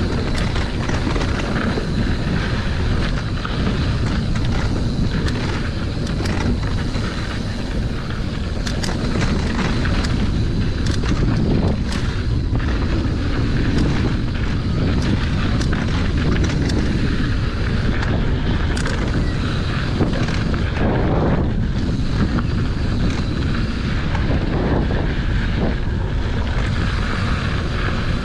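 Wind buffeting the microphone of a mountain bike descending a dirt trail, with the tyres rolling and scattered clicks and knocks from bumps in the trail.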